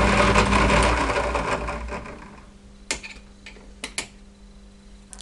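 Milling machine running with its end mill over a nylon block, the noise dying away over about two seconds. A few sharp clicks follow as the piece is handled.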